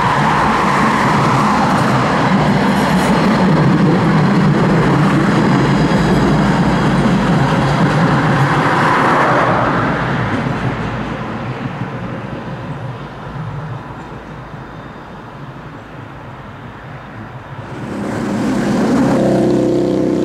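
Tram running along the track, with loud rolling noise that fades over the middle. Near the end it swells again with a steady whine.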